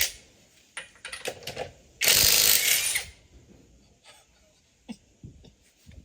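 Cyberlite cordless impact wrench run in one burst of hammering lasting about a second, preceded by a few sharp clicks and knocks from handling the tool.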